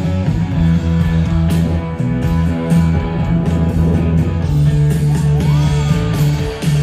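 Live band music heard from the audience: electric guitar playing over a steady bass line, with a brief gliding high note near the end.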